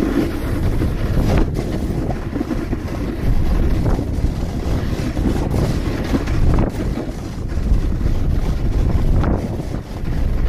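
Wind buffeting the microphone of a Samsung Gear 360 camera on a moving snowkiter: a loud low rumble that rises and falls, with a few brief hissy surges, mixed with a snowboard running over hardpack snow and ice.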